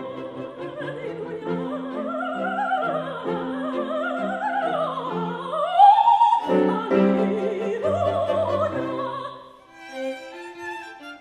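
Soprano singing an operatic line with wide vibrato over a string quartet, rising phrase by phrase to a loud, held high note about six seconds in. Near the end the voice stops and the strings go on alone, quieter.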